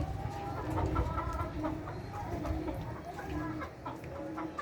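Layer hens clucking, many short calls overlapping and repeating, over a low steady rumble.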